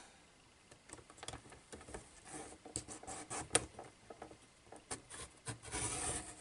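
Cut paper being handled on a paper trimmer: light rustling and small scattered clicks, with one sharper click about three and a half seconds in and a longer rustle near the end.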